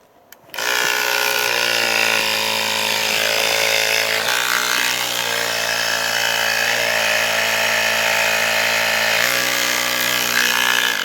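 Small electric tire inflator (air compressor) running steadily, its motor pitch shifting slightly a few times as it pumps air into a flat motorcycle tire.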